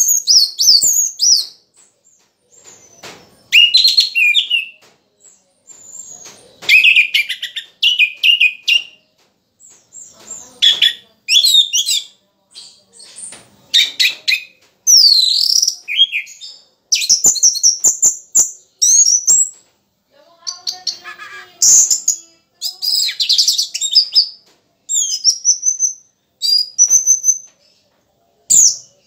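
Caged orange-headed thrush singing: bursts of quick, varied, high whistled phrases, each a second or two long, with short pauses between. The bird is in moult yet singing in full voice.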